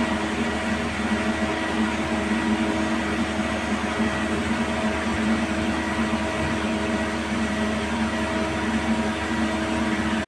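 Machinery running with a steady hum, several constant tones over an even noise, without a break.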